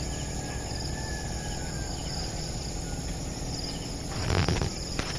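Insects chirping steadily in a grassy field, with a low rumble underneath and a brief louder rustle about four seconds in.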